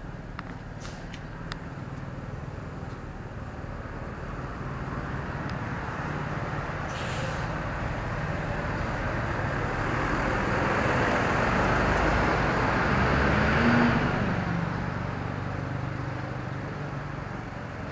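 Street traffic: a motor vehicle's engine passing close, growing louder to a peak a few seconds before the end, then fading away. There is a short hiss about seven seconds in.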